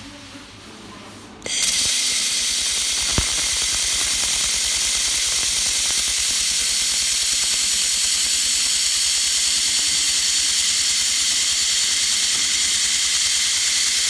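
Welding arc starting suddenly about a second and a half in and burning steadily: a loud, even hiss with a fast, regular crackle underneath.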